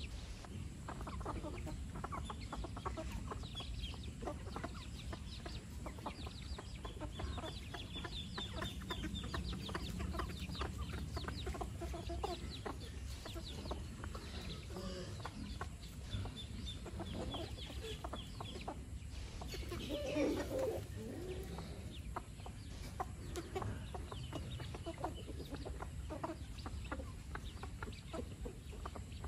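A flock of free-range chickens clucking as they forage, with high thin peeps from chicks in runs and one louder call about two-thirds of the way through.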